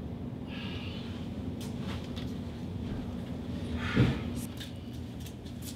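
Quiet room tone with a steady low hum and faint movement noises, and one brief short sound about four seconds in.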